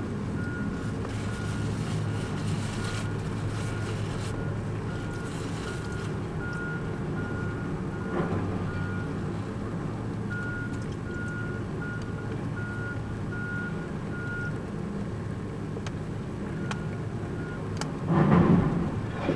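Heavy demolition machinery running with a steady diesel hum, its backup alarm beeping in a regular on-off pattern that pauses twice. Near the end there is a louder burst of rumbling noise.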